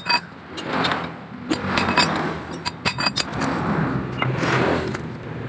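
Metal clinks and knocks, some ringing briefly, as a wrench and scooter CVT parts are picked up and set down, with a low steady hum underneath.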